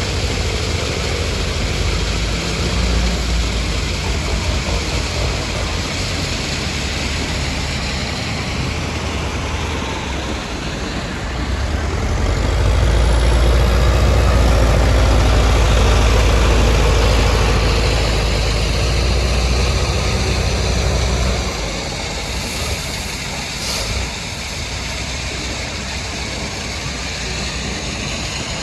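Diesel engine of heavy earth-moving machinery running with a deep rumble, working harder and louder for several seconds in the middle before easing back to a lower, steadier run.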